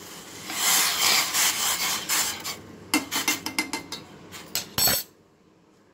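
A metal spoon scraping and stirring in a steel pot of simmering cumin tea, stirring in the added sugar. It is followed by a quick run of sharp metallic clicks and taps that stops suddenly about five seconds in.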